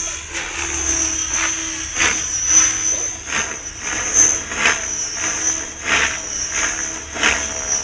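Radio-controlled 3D helicopter flying aerobatics overhead: a steady high-pitched whine with the rotor blades swishing in short repeated surges as it manoeuvres.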